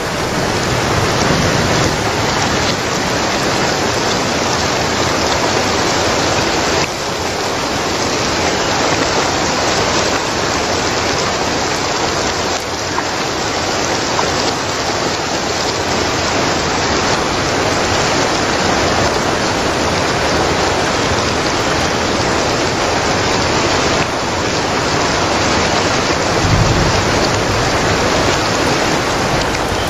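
Heavy rain pouring down and splashing onto wet rock and pooled water, a steady dense hiss of drops. A short low rumble swells briefly near the end.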